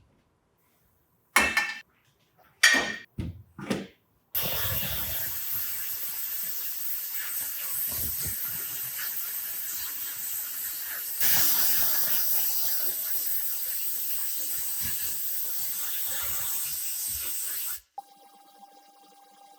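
A few brief knocks, then a steady spraying hiss starts about four seconds in, gets louder about eleven seconds in, and cuts off sharply near the end.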